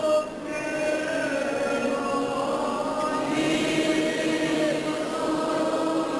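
Many voices singing a slow church hymn together, in long held notes.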